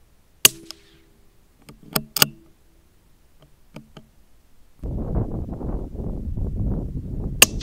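A single sharp rifle shot about half a second in, with a short ringing tail, followed by a few lighter metallic clicks. About five seconds in a steady rough rumble starts, and another sharp shot comes near the end.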